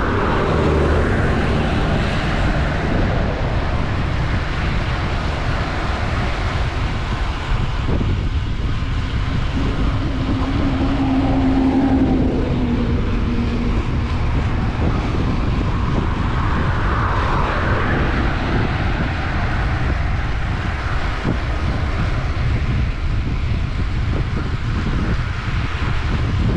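Steady wind rush over an action-camera microphone with road-bike tyres rumbling on rough asphalt while riding at speed. A brief low hum comes and goes about ten seconds in.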